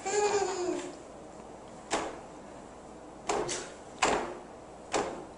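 A baby's high, squealing laugh trailing off in the first second, followed by about five sharp knocks spaced unevenly over the next few seconds, two of them close together.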